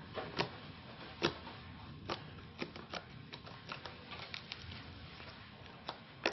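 Butter slime, made of glue and EVA foam clay, being squeezed and worked in the hands close to the microphone, giving off irregular sharp clicks and pops, about two a second.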